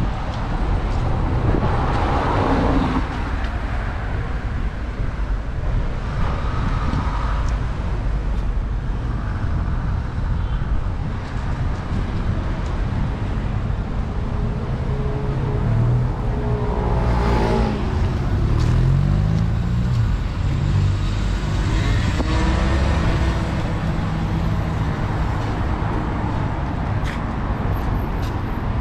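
Steady city road traffic, with cars passing. A little past the middle, one vehicle accelerates with a rising engine note.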